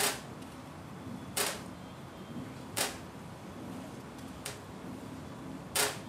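Steam-powered sawmill standing between cuts: a low steady machinery hum with five short, sharp hissing bursts at roughly one-and-a-half-second intervals.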